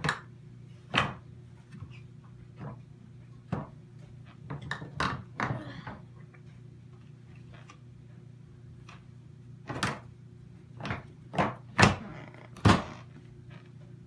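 Hard plastic knocks and clunks of a Ridgid 12-gallon wet/dry vac's lid, filter housing and drum being handled, with a run of louder snaps toward the end as the lid is pressed down and its latches clamped on. A low steady hum runs underneath.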